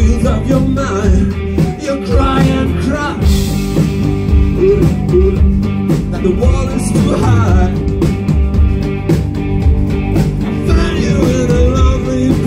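A rock band playing live: electric guitars and drums under a steady beat, with a male lead singer singing into the microphone.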